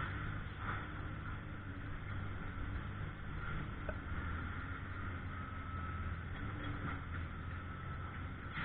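Engine of heavy work machinery running steadily: a constant low hum with a faint higher steady band above it and a few light clicks.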